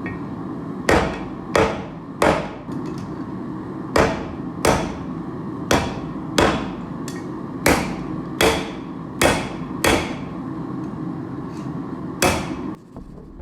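Hand hammer striking hot coil-spring steel on an anvil, about a dozen blows in runs of two or three, each with a short ring. Under them runs a steady low rush that stops just after the last blow near the end.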